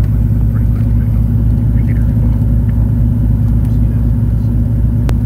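Light single-engine aircraft's engine and propeller running steadily, heard inside the cockpit as a loud, even low drone. A single sharp click near the end.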